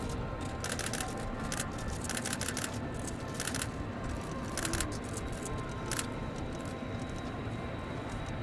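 Camera shutters firing in rapid bursts, several clusters of clicks over the first six seconds, over a steady low background rumble.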